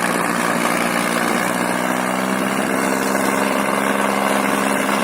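Diesel tractor engine running steadily at an even speed.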